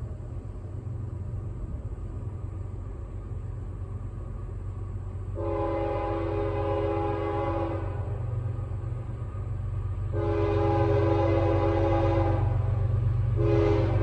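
Approaching Union Pacific GE ES44AC diesel locomotive: the low engine rumble grows steadily louder while its chord air horn sounds two long blasts, about five and ten seconds in, and a third begins just before the end.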